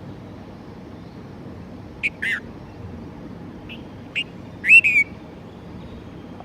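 Red-vented bulbul giving short whistled calls: two notes about two seconds in, then a few more between four and five seconds, the last ones the loudest.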